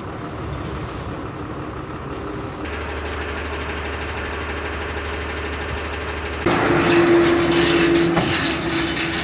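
Vehicle engine running amid traffic noise, changing abruptly twice; the last three seconds are louder, with a steady hum.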